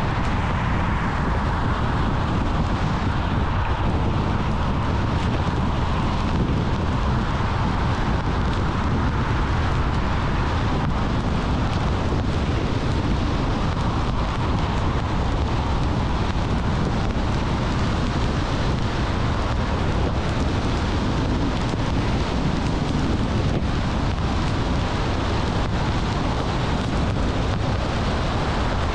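Steady road noise of a car driving at speed: low tyre rumble and wind. A faint whine fades out in the first few seconds.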